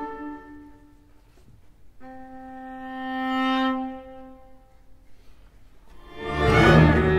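Orchestral music in a viola concerto: a single held bowed-string note swells and fades. About six seconds in, the full orchestra comes in loudly with deep bass.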